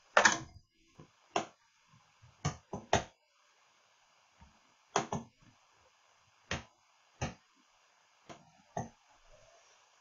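A series of about ten sharp, irregular clicks and knocks over a faint steady hiss, the loudest right at the start.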